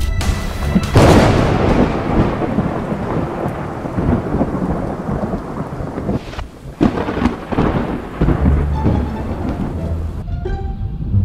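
Two loud thunderclaps, the first about a second in and the second near seven seconds, each followed by a long rumble. Music with plucked strings comes in near the end.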